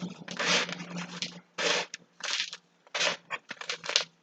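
Birdseed rustling and scraping in a bowl as a sticky cardboard tube is rolled and pressed through it, in short bursts of loose seed noise, six or seven in a few seconds.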